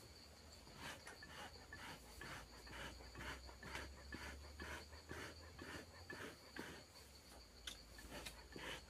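Faint insect trill, one steady high tone, under soft, irregular rustling and handling noises a couple of times a second.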